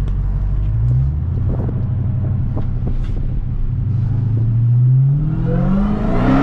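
Dodge Charger SRT Hellcat Redeye's supercharged 6.2-litre V8 pulling under hard acceleration, heard from inside the cabin with the windows down. The engine runs low at first with a brief rise about a second in, then its note climbs steadily in pitch from about two seconds in as the car speeds up.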